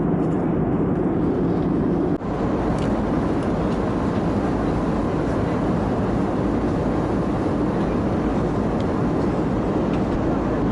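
Steady rushing cabin noise of an Airbus A320neo in flight, heard from inside the passenger cabin, strongest in the low range. It briefly drops out about two seconds in.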